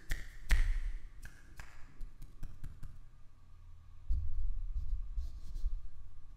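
A few light clicks and taps in the first two seconds, then low thuds and rumble from about four seconds in.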